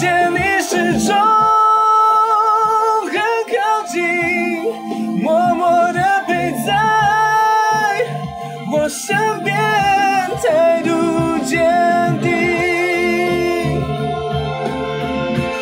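A man's voice singing a Mandarin pop ballad, holding long notes with vibrato, over a steady instrumental backing track.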